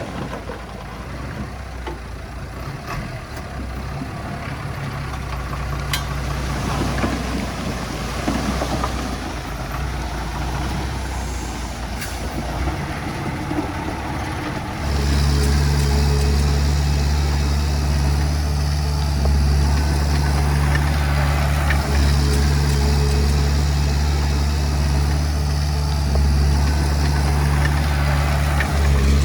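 Diesel engine of heavy earthmoving equipment running. About halfway through it jumps louder to a steady, even engine note that holds to the end.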